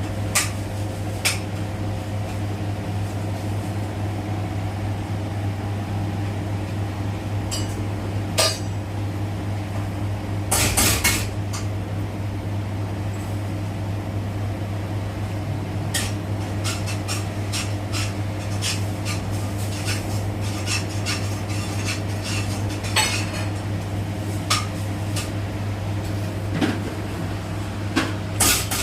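Siemens iQ700 washing machine running a spin at steady speed with a steady hum, its drum freshly replaced. Scattered sharp clicks and clinks sound over it, a cluster of them about eleven seconds in.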